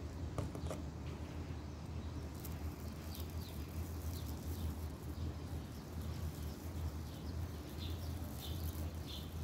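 Small bird chirping in short, repeated calls from about two and a half seconds in, over a steady low hum. A couple of faint clicks about half a second in.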